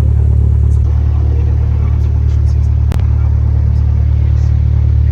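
Cessna 172's 180-horsepower carbureted engine running steadily after start, a loud low drone heard from inside the cabin. A single sharp click about three seconds in.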